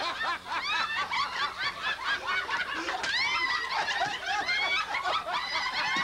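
A roomful of people laughing hard together, many voices overlapping, with high-pitched peals of laughter.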